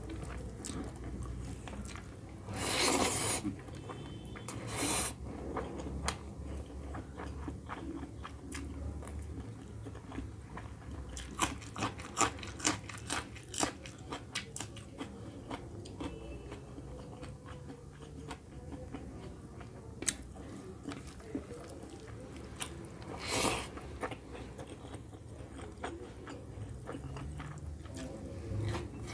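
Close-miked chewing of a mouthful of rice and chicken curry, with clicking mouth sounds and a few loud crunchy bites.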